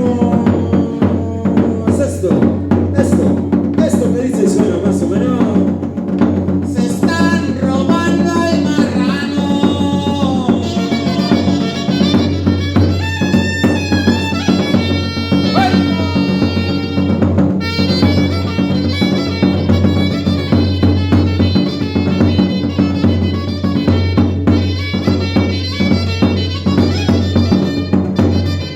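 A band playing music with a steady drum beat and bass, joined by melody instruments about a quarter of the way through.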